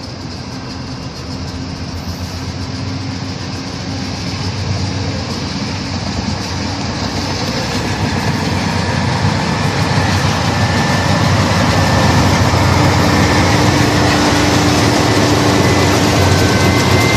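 Diesel locomotives leading a freight train approach and pass close by, the engine drone and rumble of wheels on rails growing steadily louder.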